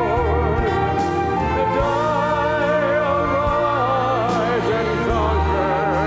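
Man singing a slow song solo through a microphone, holding long notes with a wide vibrato over a sustained instrumental accompaniment.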